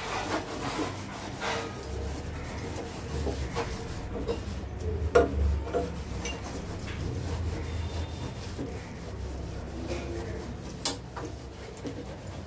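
Coconut-coir scrubber rubbing and scratching back and forth over a stainless-steel gas stove top, with a few sharp knocks along the way.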